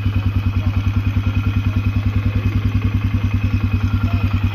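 Polaris Sportsman ATV engine idling steadily with an even, regular pulse, left running to charge a run-down battery that a failing fan motor is suspected of draining.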